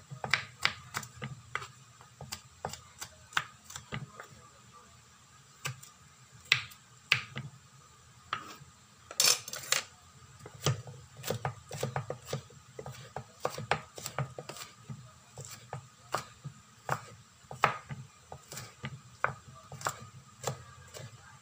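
Kitchen knife mincing garlic cloves on a wooden cutting board: quick, sharp knocks of the blade on the wood in irregular runs, with short pauses between.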